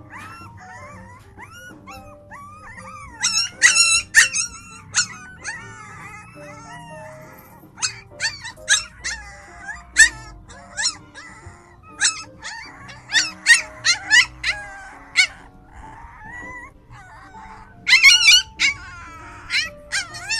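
A litter of young puppies crying with many short, high-pitched yelps and whines, loudest in bursts about three to five seconds in, through the middle, and near the end. Background music with sustained notes plays underneath.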